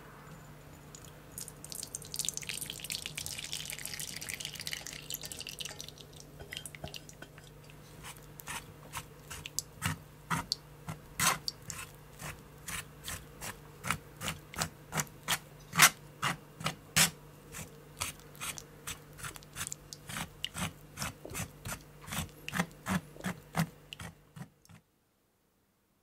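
Cooked berry pulp poured from a stainless pan onto a fine wire-mesh sieve with a wet hiss. Then a metal spoon presses and scrapes it through the mesh in sharp strokes, about two a second, stopping suddenly near the end.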